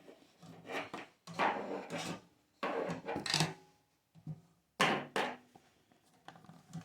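Irregular bursts of scraping and rubbing, about six short strokes with pauses between them, as the gas water heater's burner assembly is worked loose against its rubber gasket.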